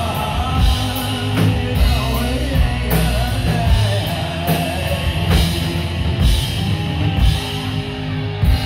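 Live rock band playing loud: electric guitar and a drum kit with cymbal crashes about once a second, with a male singer singing into a microphone.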